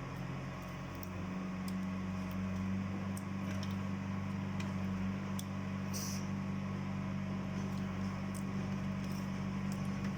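Steady low electrical hum with a few faint light clicks; the hum grows slightly louder about a second in.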